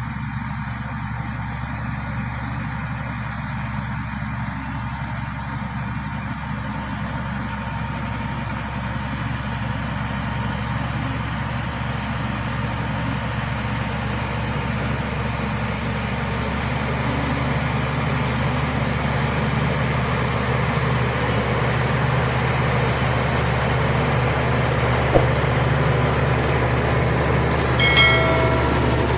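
SD16 crawler bulldozer's diesel engine running steadily under load, growing gradually louder. A single sharp knock comes late on, and a brief high-pitched squeal near the end.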